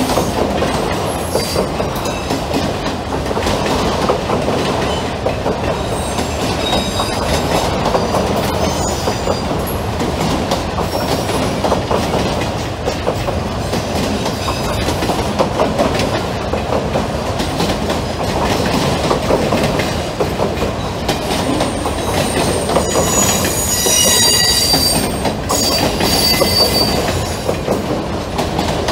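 Long cut of empty autorack freight cars rolling past steadily on steel wheels. Near the end, the wheels squeal in several high metallic tones.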